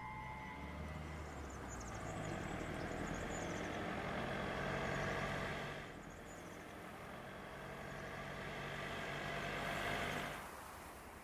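Volkswagen Golf hatchback driving up a road, its engine and tyres growing louder as it approaches. The sound drops away suddenly about halfway through, builds again, then falls off near the end.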